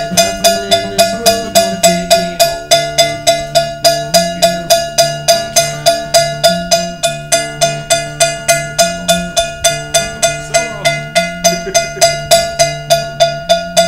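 Cowbell struck with a stick in a steady beat, a little over three strikes a second, over strummed acoustic guitar chords.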